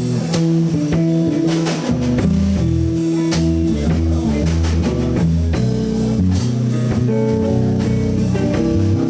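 Live blues band playing an instrumental break: guitar lead lines with held notes over bass guitar and a drum kit.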